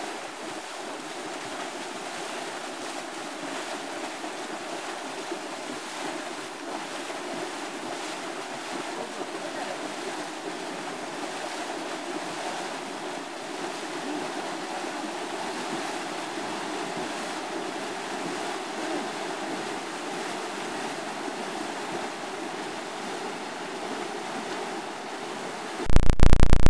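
Steady rushing noise with no clear pitch or rhythm, cut off about a second before the end by a sudden, much louder blast of noise.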